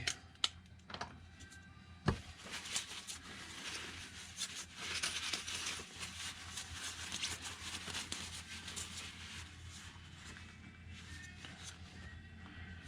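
Handling noise from a bare RC wheel being checked over: a sharp knock about two seconds in, then several seconds of scratchy rubbing and small clicks that slowly die down.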